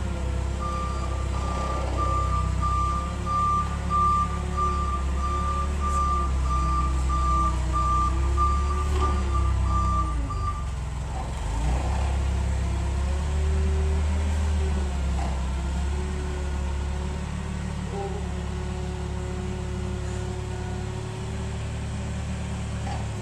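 A vehicle engine running, its pitch rising and falling, with a reversing alarm beeping in a steady string for the first ten seconds or so.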